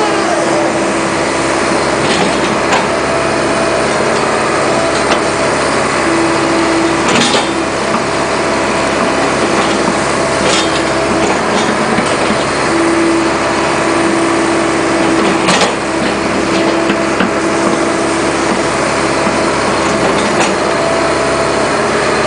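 Cat 215 excavator's diesel engine and hydraulics working under load as the bucket digs out stumps, heard from the cab, with a hum that comes and goes and a few sharp knocks.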